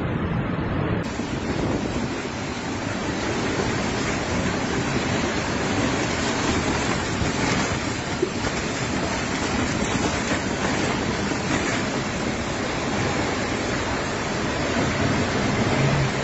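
Tornado-force wind blowing against a phone's microphone: a steady, dense rush of noise without let-up as an F4 tornado passes close by.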